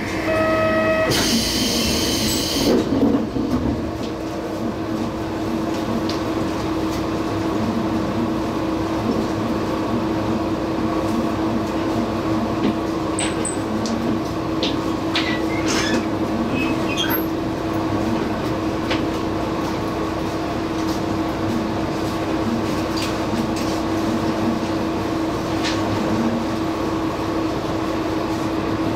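Diesel railcar idling while stopped at a station: a steady engine hum with an even drone. About a second in, a short electronic tone sounds, followed by a loud hiss lasting a couple of seconds.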